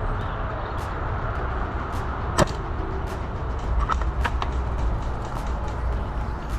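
Steady low rumble outdoors, with one sharp crack about two and a half seconds in and two fainter clicks about a second and a half later.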